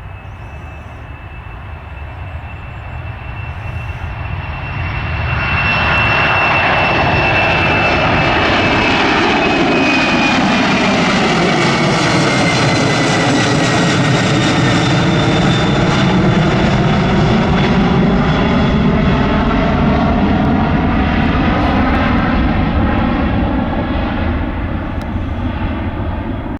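Twin-engine Boeing jetliner's engines at take-off power as it passes by: the noise swells over the first several seconds, a high whine falls in pitch as it goes past, and the sound eases off near the end.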